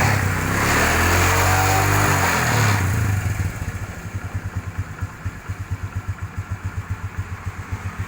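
Motorcycle engine revved with two throttle blips, then dropping to a steady, even idle about three seconds in; the engine is running smoothly after work on it.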